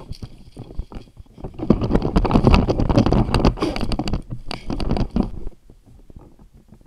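Footsteps and brushing through dry heather and shrubs: a dense run of crackles and scrapes, loudest through the middle, dropping away about five and a half seconds in.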